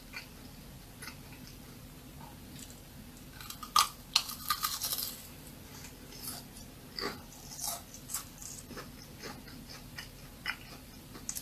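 Crunchy churro bitten and chewed close to a microphone: a dense run of loud crisp crunches about four seconds in, then scattered single crunches as it is chewed.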